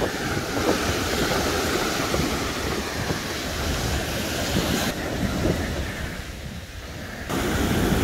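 Pacific Ocean surf breaking and washing up a sandy beach, with wind rumbling on the microphone. The wash eases off about six seconds in and swells again near the end.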